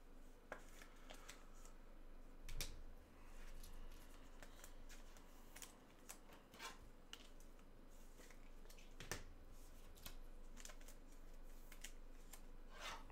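Trading cards being handled and sorted: faint, scattered clicks and light rustles of card stock, with a sharper click about two and a half seconds in and another about nine seconds in.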